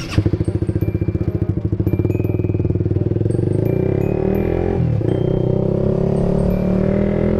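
Honda CBR150R single-cylinder engine running, starting abruptly with a sharp burst and a pulsing beat for the first couple of seconds, then settling steadier, with a brief drop and recovery in engine speed about five seconds in.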